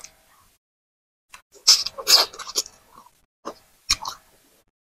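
Close-miked eating sounds: after about a second's pause, wet mouth smacking and chewing of fufu and soup in a run of short noisy bursts, then a few sharp lip smacks near the end.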